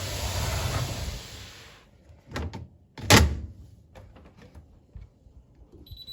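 A steady rushing noise that stops about two seconds in, then a light knock and a loud thud of the tumble dryer's door being shut, followed by a few faint clicks.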